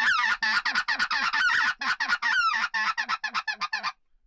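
Hand-held goose call blown in a fast run of short, cracking honks and clucks, about five a second, cutting off suddenly just before the end.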